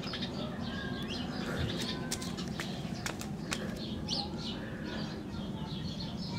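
Birds chirping and calling repeatedly in the background, with a few sharp clicks among the calls.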